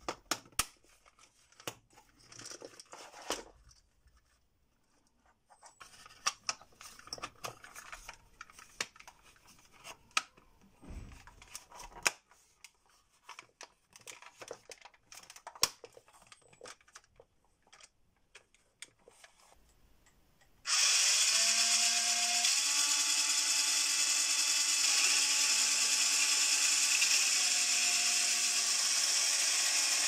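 Light plastic clicks and handling noises from a toy RC car being fitted back together. About two-thirds of the way in, the Carrera RC Turnator's electric drive motors and gearboxes start whirring loudly as its wheels spin, the pitch stepping up and down with the throttle.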